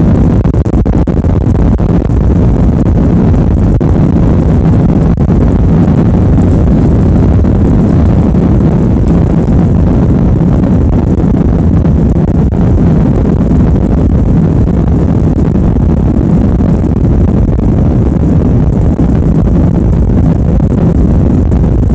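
Airbus A320 cabin noise during the takeoff roll: a loud, steady low rumble of the twin jet engines at takeoff power and the aircraft rolling down the runway.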